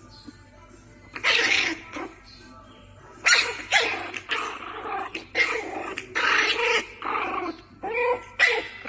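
Two puppies play-fighting, growling in a run of short, loud bursts that start about a second in.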